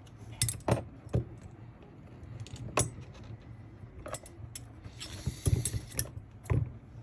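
Small metal tools and parts clicking and knocking as they are handled, with a short jingling rattle about five seconds in.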